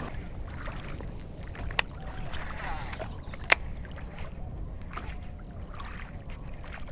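Steady low rumble of wind on the microphone and water around a small open boat, broken by two sharp clicks about a second and a half apart.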